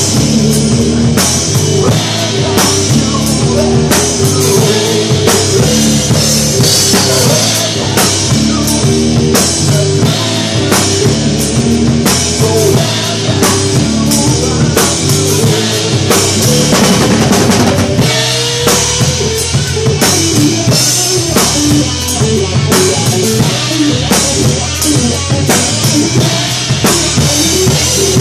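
Drum kit played steadily, with bass drum, snare and cymbal strokes, along with the recorded song that the drum cover follows. The song's notes shift about eighteen seconds in.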